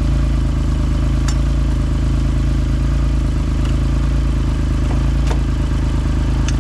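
Engine idling steadily, with a couple of sharp metallic clicks, about a second in and about five seconds in, as the gearbox is shifted by hand because its shift lever has broken off.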